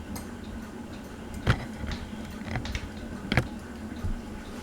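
Harbor Breeze Palm Breeze ceiling fan running while wobbling badly: a steady low hum with scattered light ticks and two louder clicks about two seconds apart.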